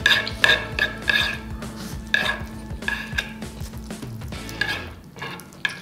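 Close-miked slurping and chewing of Samyang jjajang instant noodles eaten with chopsticks: a string of short, wet slurps, several in the first second and a half and more spaced out after.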